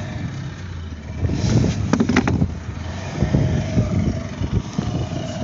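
Small fishing boat's outboard motor running with a steady whine, under a heavy low rumble of wind buffeting the microphone; a few sharp knocks around two seconds in.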